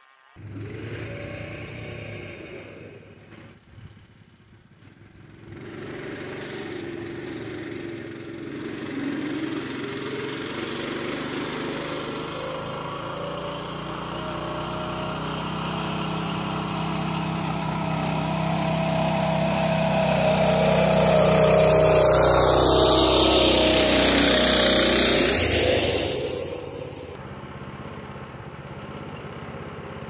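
Small tractor powered by a Predator 212 single-cylinder engine, running under load while hauling hay. It grows steadily louder as it comes close, peaks with a sweeping change in pitch as it passes, then drops off sharply near the end.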